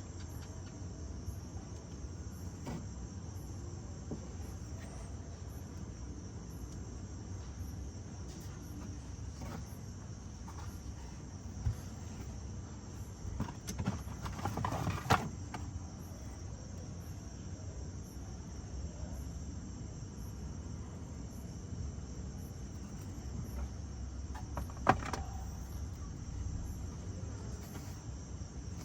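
Steady high insect chirring, like crickets, over a low steady rumble, with a few sharp clicks and knocks about halfway through and again near the end.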